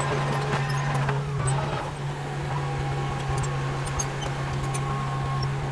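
Diesel engine of heavy earthmoving machinery running steadily, a constant low drone, with scattered light ticks over it.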